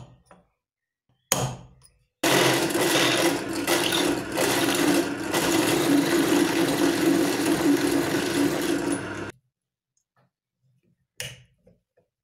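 Benchtop drill press running and drilling into wood: a steady motor hum under a dense cutting noise that holds for about seven seconds, then stops abruptly. Two short knocks come before it in the first couple of seconds.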